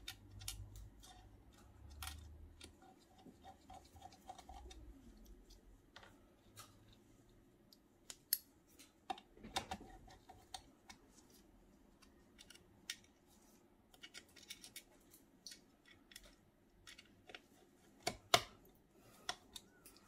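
Irregular small clicks and taps of a hand tool and small parts being handled inside an opened Mac Mini during reassembly, with a pair of sharper clicks near the end.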